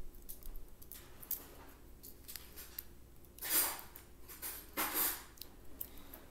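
Handling noise as a twist tie is untwisted from a pair of kitchen tongs: scattered light clicks, and two short swishes about three and a half and five seconds in.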